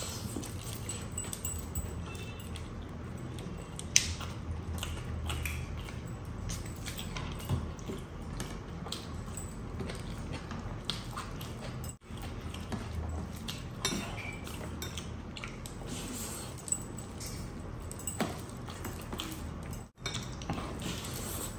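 Close-up eating sounds: chewing mouthfuls of rice and spinach chicken, with fingers mixing rice on the plate and the clink of metal rings and bracelets. Scattered small clicks and crackles over a steady low background, one sharp click about 4 s in.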